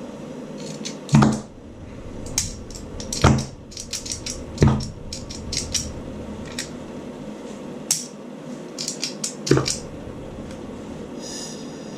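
Metal tools and parts being handled: a run of clinks and clicks with four louder knocks, the first about a second in and the last near the end.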